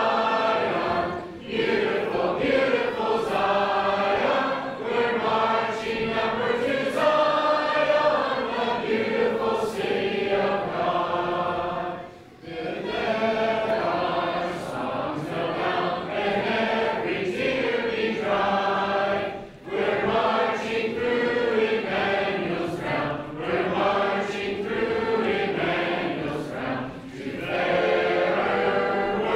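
A congregation of men's and women's voices singing a hymn together, with short breaks between lines.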